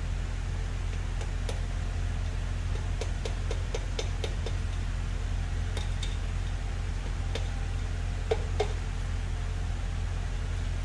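Light metallic clicks and clinks of engine parts being handled and set down, with two sharper clinks a little past eight seconds in, over a steady low hum.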